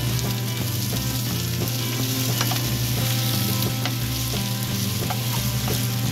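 Odeng (Korean fish cake) frying with garlic and onion in a frying pan, sizzling steadily, with scattered clicks of a utensil stirring against the pan.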